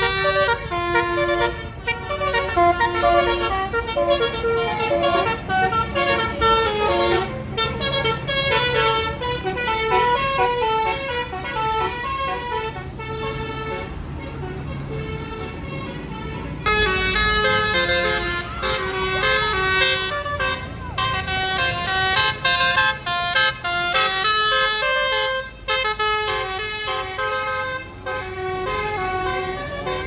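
Tour bus's 'basuri' telolet musical air horn playing a fast tune of stepped notes, over the low running of the bus's engine. The tune eases off in the middle and starts up loudly again a little past halfway.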